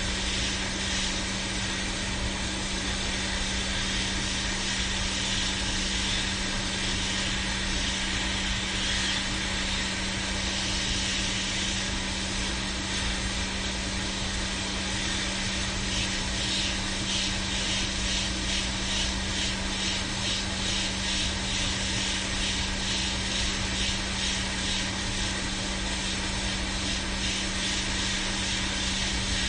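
Hot-air rework station blowing steadily over a circuit board, with a constant fan hum and airflow hiss, reflowing the solder joints under a NAND chip until they melt.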